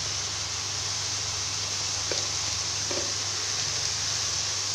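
Steady hiss of soya chunks cooking in an aluminium pan on a gas stove, over a low steady hum, with one faint click about two seconds in.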